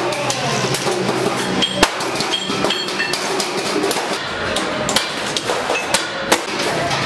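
Stainless steel sheet being cut with long-handled hand shears: irregular metallic clicks and knocks as the blades bite and the sheet flexes and rattles. Two louder knocks come about two seconds in and about six seconds in.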